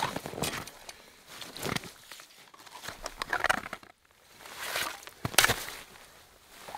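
Lake ice being chipped and scraped with a metal bar: irregular crunching and scraping of ice and snow, with a sharp knock about five seconds in.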